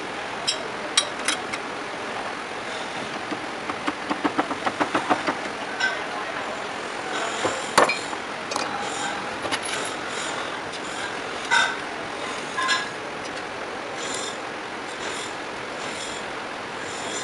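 Clinks and taps of metal as a pedestal fan motor's aluminium housing, end cover and hand tools are handled and fitted together, with a quick run of light taps about a quarter of the way in and a sharp click about halfway, over steady mechanical workshop noise.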